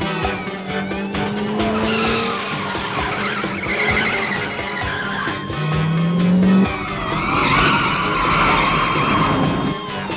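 Car chase: car engines revving and tyres squealing and skidding on pavement, with a police siren wailing over background music. One engine's pitch climbs sharply about six seconds in.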